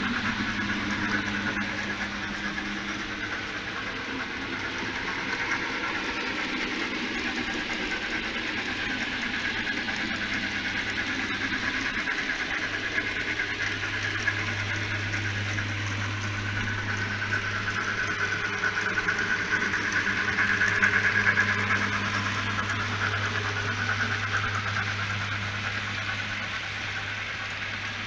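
Model train running past: a model Southern Pacific 4456 steam locomotive and a long string of boxcars rolling on the track. The motor hum and wheel-on-rail noise are steady, swell to their loudest about two-thirds of the way through, then ease off.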